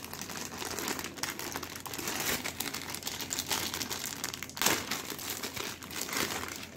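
Clear plastic bag crinkling and rustling as it is handled and pulled open, with louder crackles about four and a half and six seconds in.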